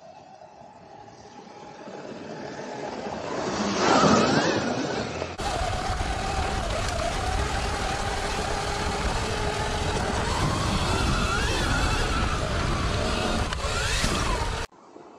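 Sur-Ron electric dirt bike riding over a dirt track: the electric motor's whine rises and falls with speed over a low rumble. It swells to a loud peak about four seconds in, then runs on more steadily with small changes in pitch.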